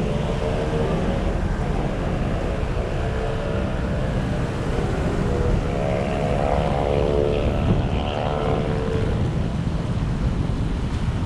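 Moving vehicle driving noise: a low rumble of wind and road noise, with an engine's hum that rises and then falls in pitch around the middle.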